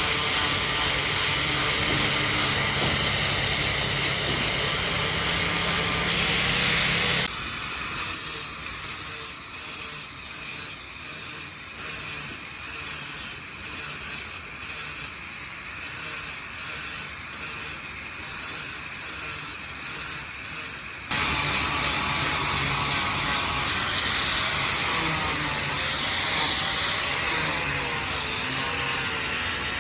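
Power tools working stainless steel: a steady grinding and polishing noise, broken in the middle by a run of short bursts about one a second, then steady again.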